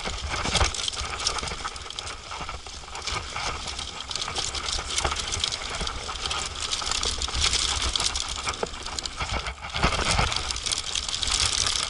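Mountain bike rattling and clattering down a rough dirt downhill track, with tyres running over dirt and loose parts chattering over the bumps. A short lull comes about ten seconds in, then the rattling picks up again.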